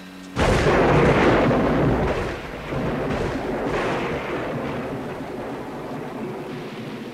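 A sudden thunderclap about a third of a second in, then thunder rolling on in several swells and slowly fading, over falling rain.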